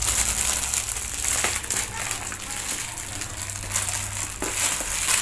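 Clear plastic bags crinkling and crackling as they are handled and pulled open, with a few clicks.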